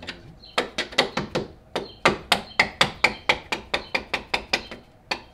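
Hammer striking a chisel held against a steel pinch bolt to drive it out of the control-arm mount on a car's front steering knuckle: rapid metallic blows, about four to five a second, each with a short ring.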